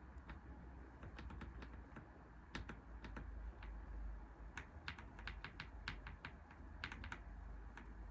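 Typing on a computer keyboard: faint, irregular keystroke clicks coming in short bursts with pauses between them.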